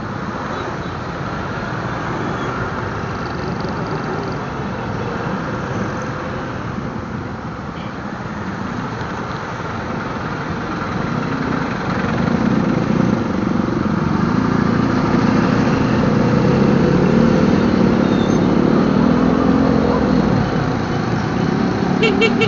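Motorcycle engine and road noise while riding in traffic, a steady rumble that grows louder from about halfway as the engine note rises.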